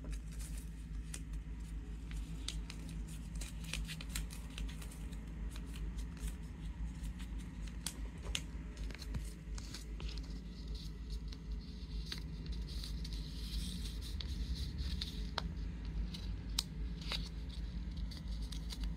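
Sheet of paper being folded and creased by hand into an origami jumping frog: scattered crackles and rustles of paper over a steady low hum.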